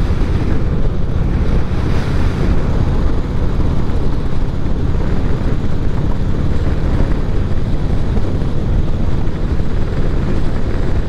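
Harley-Davidson V-twin motorcycle running at a steady cruising speed: a constant low engine drone under heavy wind rush on the microphone.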